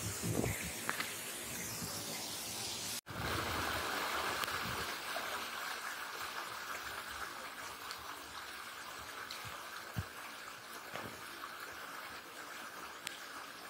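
Heavy rain, a steady rushing hiss of falling and running water, with a brief dropout about three seconds in.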